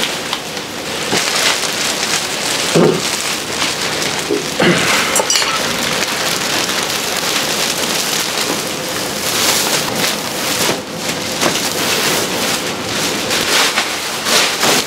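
Large plastic bags crinkling and crackling continuously as bedding is stuffed and sealed into them, with a few soft knocks.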